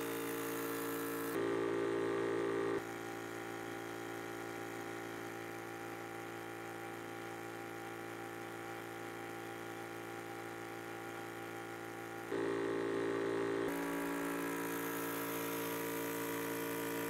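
Yong Heng high-pressure PCP air compressor running steadily under load while filling an air tank, a constant hum of several steady tones. Its level jumps up and down abruptly a few times.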